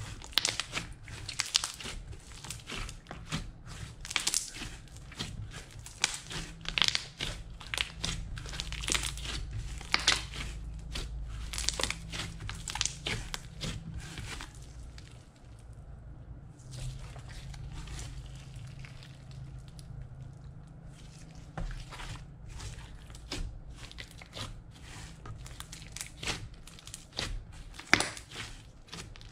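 Blue glitter slime being kneaded and squeezed by hand, giving off a dense run of crackling, popping clicks. The clicks thin out for a few seconds past the middle, then pick up again near the end.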